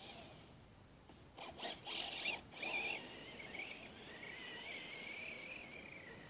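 Faint whine of an Axial Exo RC buggy's electric motor: a thin tone that wavers up and down in pitch with the throttle. About one and a half to three seconds in, a few short scuffing bursts come first and are the loudest part.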